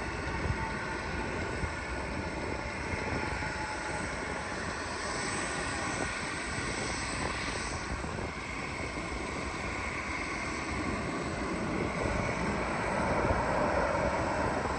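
Jet airliner engines on landing approach: a steady rumble with a thin high whine, growing louder near the end.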